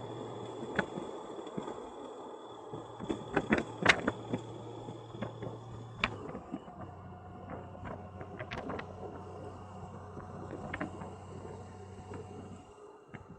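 Motorcycle on the move: a steady low engine hum that drops slightly about six seconds in, with scattered clicks and knocks throughout.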